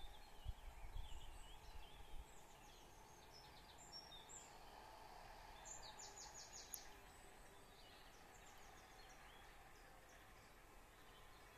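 Faint songbird trills, each a quick run of about ten notes a second, sung several times over the low steady hum of a distant tractor working a field. A few low rumbling bumps on the microphone in the first two seconds.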